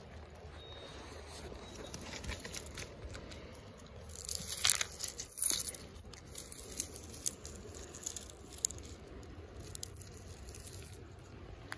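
Dry grass and gravel crunching and rustling on stony ground, loudest in a cluster about four to six seconds in. Several light sharp clicks of stones follow as a hand reaches in among them.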